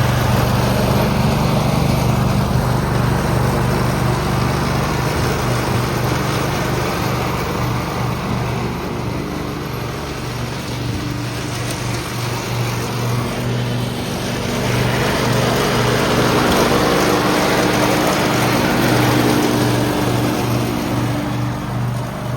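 Ariens EZR 1648 riding mower's engine running steadily, easing off slightly about halfway through and picking up again later.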